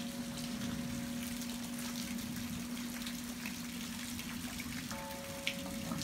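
Steady rain pattering on foliage and surfaces, with faint steady tones underneath: a low one that fades away, and higher ones that come back in near the end.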